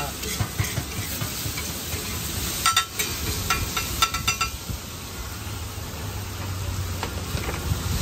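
Egg and chopped vegetables sizzling on a large flat griddle while a metal spatula scrapes and chops against the hot plate. Clusters of sharp metallic clinks from the spatula hitting the griddle come about three and four seconds in, then the sizzle goes on more evenly.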